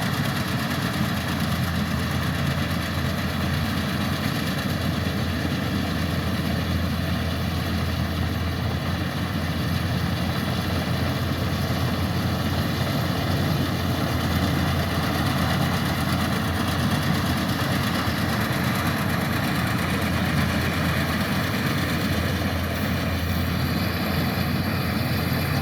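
Kubota rice combine harvester's diesel engine running steadily, a continuous low drone with no change in pitch or level.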